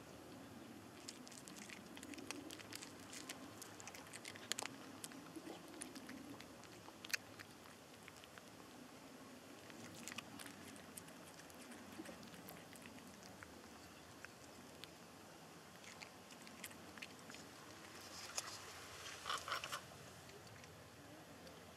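A cat chewing and crunching food: faint, irregular crunches, with a louder scratchy patch near the end.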